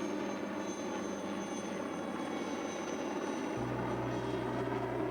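Helicopter running, a steady mix of engine and rotor noise, with a low hum joining about three and a half seconds in.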